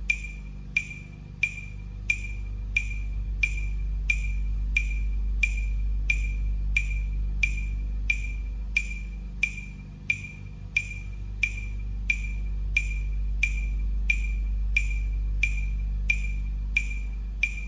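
Metronome app on a tablet clicking at 90 beats per minute: a sharp, high click about every two-thirds of a second, evenly paced throughout, over a low steady hum.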